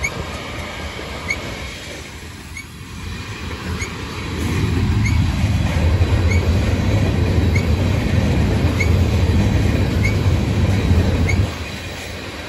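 Covered hopper cars of a Union Pacific freight train rolling past, steel wheels running on the rails. A deep rumble swells about four seconds in, holds steady, and drops off sharply near the end.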